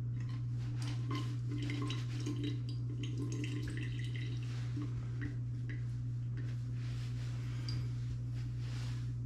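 Water dripping and small hard clinks, like gear being handled at a sink, over a steady low hum. The clicks and short ringing blips come irregularly and are busiest in the first half.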